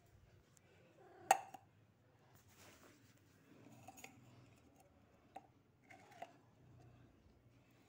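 Plastic spoon scraping and clinking against the inside of an opened metal can of wet cat food, a few sharp clicks with soft scrapes between them, the loudest click about a second in.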